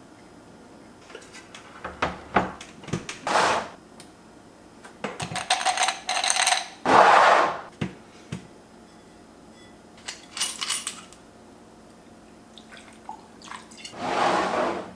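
Ceramic plate and glassware handled on a table: knocks and glassy clinks, with a ringing clink about six seconds in. Between them come several short rushes of liquid or splashing.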